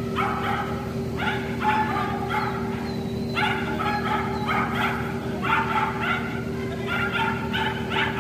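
A young Shetland sheepdog barking repeatedly while running an agility course: about a dozen short, high barks, often two or three close together, over a steady low hum.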